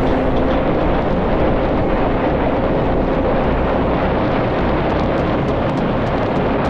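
Electric motor and propeller of a small homemade RC airplane running steadily, heard from the camera on board, with wind rushing over the microphone.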